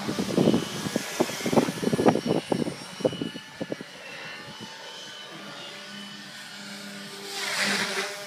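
Stingray variable-pitch 3D quadcopter flying aerobatics: a quick, irregular run of loud rotor whooshes in the first four seconds as it manoeuvres, then a steady hum of the rotors and motor, swelling near the end as it comes closer.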